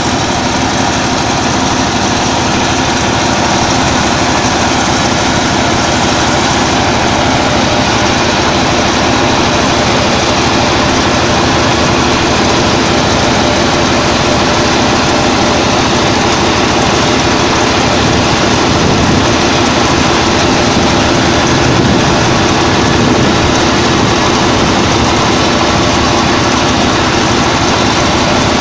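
Combine harvester running steadily in a loud, even engine drone.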